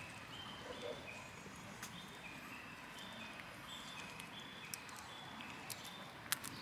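Faint animal calls: short, high, even notes repeated about twice a second, alternating between two pitches, with a few sharp clicks scattered through.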